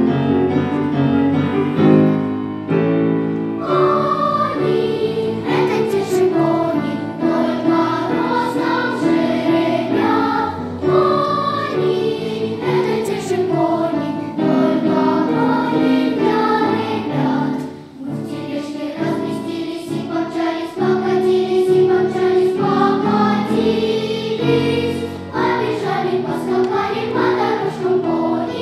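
First-grade children's choir singing a song to piano accompaniment; the piano plays alone at first and the voices come in about four seconds in.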